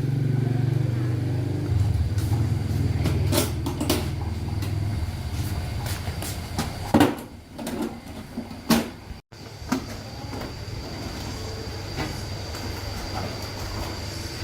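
A motor running with a steady low hum, with scattered knocks and clanks over it and a brief dropout about nine seconds in.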